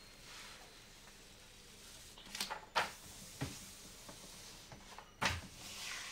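Protective paper being peeled back and handled on a diamond painting canvas: soft rustling with several sharp paper crackles, a cluster about two and a half seconds in and another about five seconds in.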